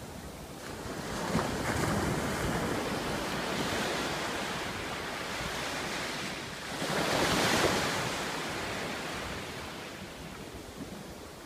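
Sea waves washing in: a wash of surf that builds about a second in, swells to its loudest around seven seconds in, then ebbs away.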